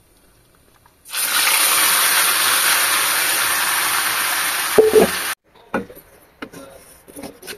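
Small turmeric-coated fish dropped into hot oil in an iron kadai, frying with a loud, steady sizzle. The sizzle starts about a second in and cuts off suddenly after about four seconds, leaving faint clatters.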